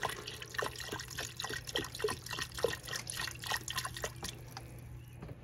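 Beef stock poured in a stream into the hot inner pot of an Instant Pot over sautéing onions, splashing with many quick bubbly plops, over a faint steady low hum. The pour thins out near the end.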